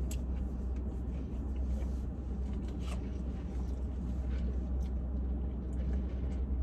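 Steady low rumble of a car's engine idling, heard from inside the cabin, with scattered small clicks and rustles.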